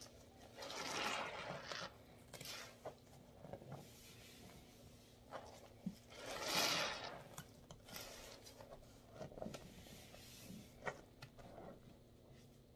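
A soap-paste-loaded sponge squeezed and worked in a tub of foamy soapy water: wet squishing and dripping in several swells, the loudest about six and a half seconds in, with small pops and clicks between.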